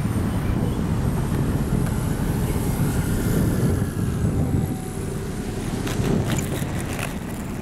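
Wind buffeting the microphone, with the faint whine of a foam RC warbird's electric motor and propeller falling in pitch as the model comes past. A few brief clicks near the end.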